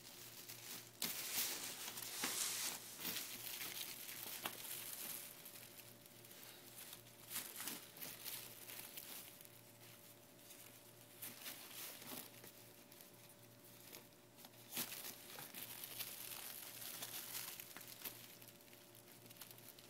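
Crinkling and rustling of a softbox's silver metallic lining as hands work inside it, tying ties onto the PVC pipe ribs, in irregular bouts with short pauses between.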